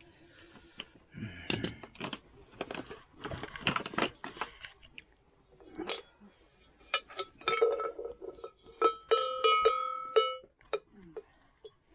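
Metal livestock bells and their fittings clinking and clanking as they are handled with leather collar straps. In the second half a bell is struck several times and rings with a clear, steady tone.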